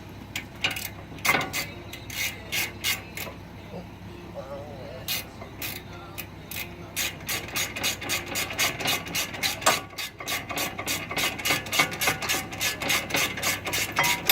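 Hand ratchet wrench clicking as the brake caliper bracket bolts are run in. The clicks come scattered at first, then a fast, even run of clicks starts about halfway through.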